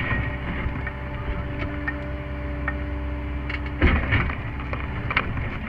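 Sany SY50U mini excavator's diesel engine and hydraulics running steadily, heard from inside the cab, while the tooth bucket digs. There are knocks and scraping as the bucket works the dirt around a stone, loudest about four seconds in, with another short knock about a second later.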